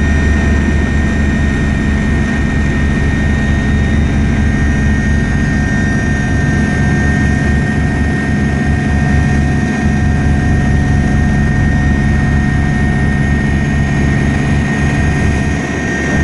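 Helicopter in flight heard from on board: a steady engine whine over the low, rapid beat of the rotor.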